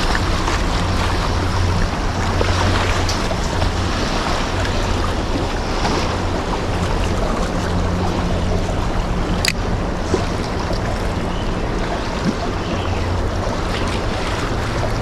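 Steady outdoor wind noise buffeting the microphone, with a low rumble underneath. A single sharp click comes about nine and a half seconds in.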